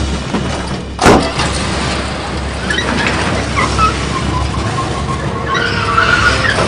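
Car engine running with a steady low rumble; a car door slams shut about a second in. From about three seconds in, high wavering tones rise over the engine, growing stronger near the end.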